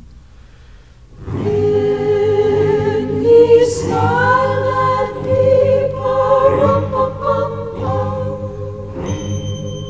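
A choir singing with a steady sustained accompaniment underneath, coming in loudly about a second in.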